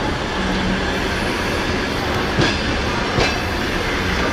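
Passenger coaches of a departing train rolling slowly past, with a steady rumble, two wheel knocks over rail joints under a second apart, and a faint wheel squeal.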